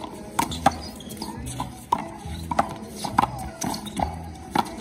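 Rubber handball smacking off a concrete wall and floor and slapped by bare hands during a handball rally: a quick, irregular run of sharp slaps, with music playing underneath.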